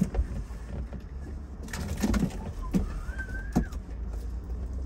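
Dove cooing a couple of times over a steady low rumble.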